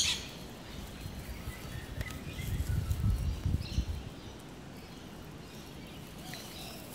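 Faint bird calls over outdoor background noise, with a stretch of low rumbling from about two and a half to four seconds in.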